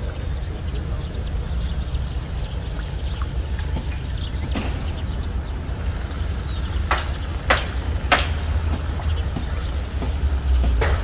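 Wind buffeting the microphone beside open water, a steady low noise, with a few sharp clicks about seven and eight seconds in and again near the end.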